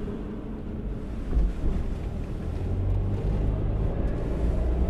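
A car driving slowly, heard from inside the cabin: a low, steady engine and road rumble that grows a little louder about halfway through.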